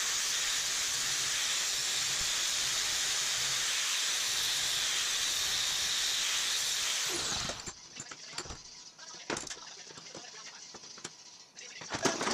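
Angle grinder with a thin cut-off wheel cutting steel clamped in a bench vise: a steady, loud hiss for about seven seconds, then the grinder spins down with a falling whine. After that come scattered light knocks and clinks of metal being handled at the vise.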